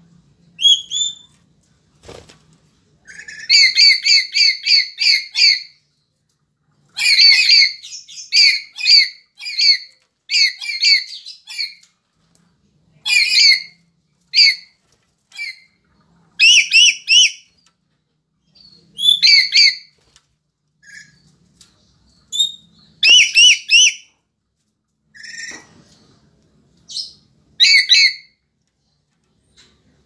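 Black-capped lory (Lorius lory) calling: loud, harsh squawks in quick runs of about three a second, repeated in bouts with short pauses between.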